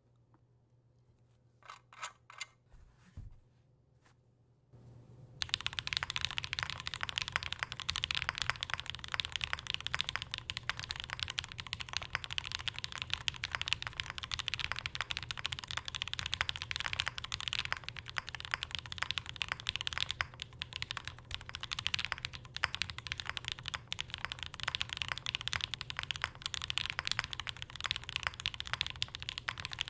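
Continuous fast typing on a Bear65 v2 Alice-layout mechanical keyboard with Red Jacket switches, an aluminium plate and plate foam fitted. It starts about five seconds in, after a few faint clicks. The typing sounds muddy, with the harsher clack rounded out and no hollowness.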